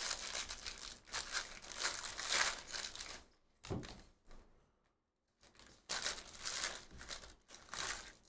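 Foil wrapper of a 2023 Bowman Draft Jumbo pack of baseball cards being torn open and crinkled by hand, in rustling bursts with a short pause about halfway through.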